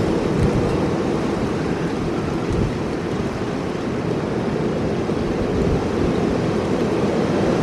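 Strong wind from a severe thunderstorm blowing steadily and buffeting the microphone, a dense, even rushing noise.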